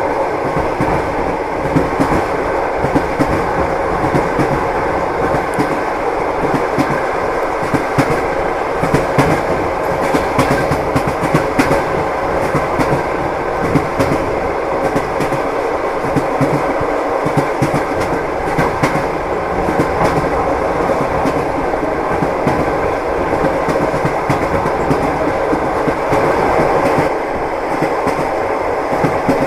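Railway carriage wheels clattering over rail joints as a train runs steadily along the track. The rumble is continuous, with a rapid, irregular clicking throughout.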